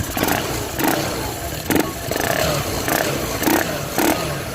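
Yamaha Aerox scooter engine, built up to 180cc with a big-bore piston and fuel injection, running on its first test and revved in about seven quick throttle blips, roughly one every two-thirds of a second.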